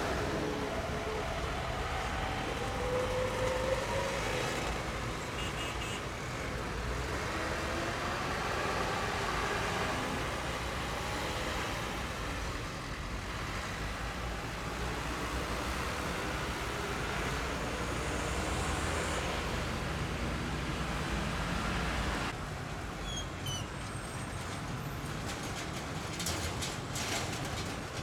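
Road traffic dominated by a Mitsubishi Fuso dump truck's diesel engine pulling across and past, its engine note rising in the first few seconds. About 22 seconds in the sound changes abruptly to quieter, idling traffic with a few short high chirps.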